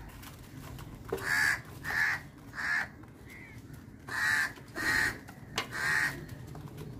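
Crow cawing: three calls about half a second apart, a pause, then three more.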